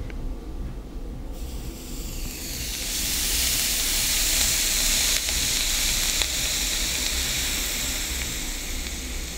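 Hookah tobacco sizzling under a hot coal resting directly on it in the bowl, with no foil or screen between them, heard with the microphone held right at the bowl. The hiss swells over the first few seconds, holds, then slowly eases off.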